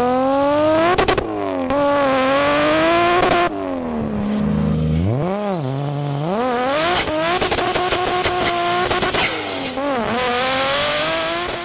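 Racing-car engine sound effect, revving hard. Its pitch holds high, drops and climbs again through several gear changes. A thin high whine rises steeply in the middle.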